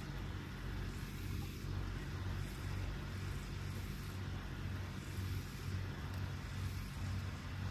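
Low, steady hum of a distant motorboat engine.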